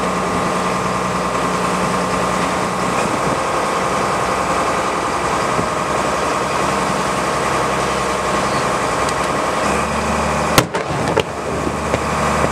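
A boat's engine idles steadily throughout. About ten and a half seconds in, two sharp bangs about half a second apart come from floating starmine firework shells going off on the water beside the boat.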